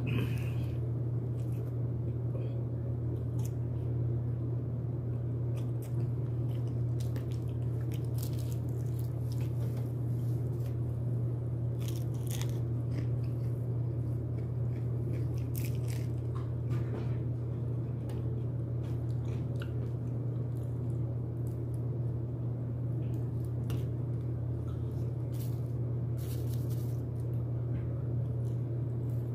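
A person biting and chewing broasted chicken, with irregular crunches scattered throughout over a steady low hum.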